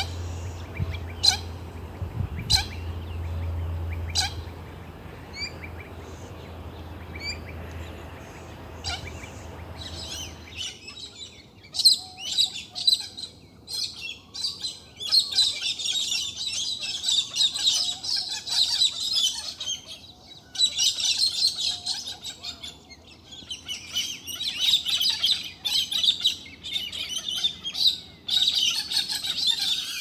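Galahs calling. A few sharp, short calls come over a low steady hum at first. From about ten seconds in, the calls turn into dense, high chattering calls from several birds, broken by short pauses.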